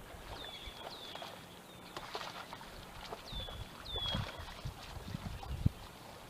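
A bird calling with short whistled notes that slide down and level off, given in two pairs, with a few soft low knocks in the second half.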